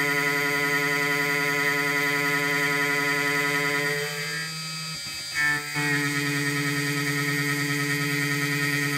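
End mill cutting an aluminium clamp in a drill press converted to a milling machine, giving a steady pitched whine from the cut. A little under halfway through, the whine falls away for about a second and a half, with a brief louder knock, then the cut picks up again at the same pitch.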